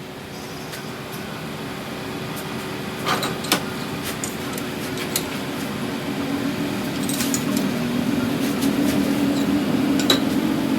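A machine's motor running steadily and slowly growing louder, with a few sharp metallic clinks.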